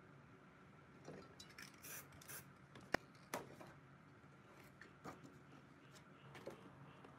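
Paper stencil masks being lifted off a spray-painted board: a few short rustles of paper, then two sharp clicks about three seconds in, and some lighter ticks and rustles after.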